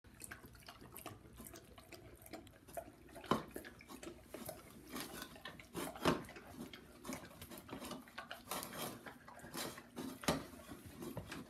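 Dog lapping water from a bowl: a run of quick, irregular wet laps, with a few louder clicks about three, six and ten seconds in.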